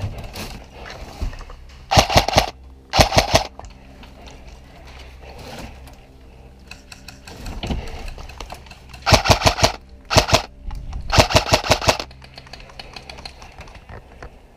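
Airsoft rifle firing five short rapid-fire bursts of sharp clacking shots, two close together about two seconds in and three more in quick succession about nine to twelve seconds in.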